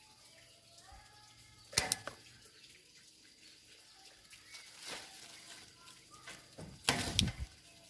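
A few sharp clicks and snaps: a pair about two seconds in, one near the middle and a louder cluster near the end. Faint bird calls go on in the background.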